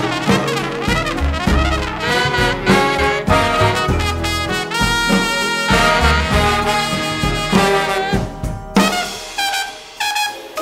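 Large jazz ensemble playing, led by massed brass and saxophones holding and moving notes together over deep low notes. About nine seconds in the sound thins out and drops in level, then the full band comes back in at the very end.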